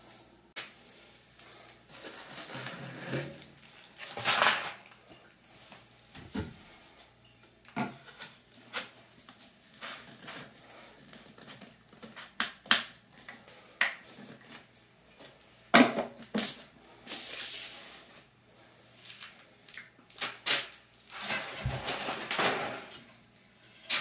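PVC drain pipe and fittings being handled and fitted over a gravel bed: scattered plastic knocks and clicks, with a few longer scraping, rattling bursts, the loudest about four seconds in.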